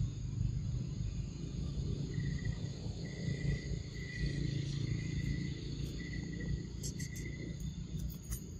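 An insect trilling on one high pitch in short bursts of about half a second, starting about two seconds in, over a steady low outdoor rumble. A few faint sharp clicks come near the end.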